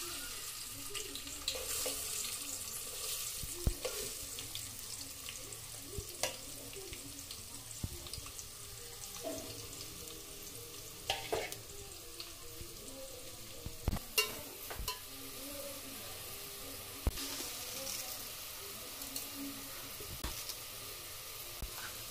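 Sliced onions sizzling in hot oil in a steel pot, a steady frying hiss. A few sharp clicks and knocks of a utensil against the pot.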